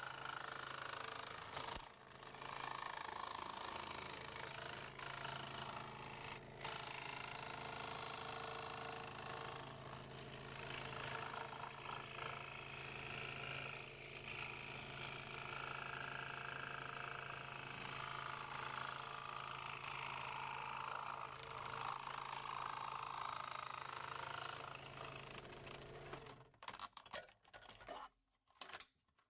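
A 16-inch scroll saw running, its blade cutting through black plastic holster sheet with a steady hum. The saw stops about 26 seconds in, followed by a few clicks as the cut pieces are handled.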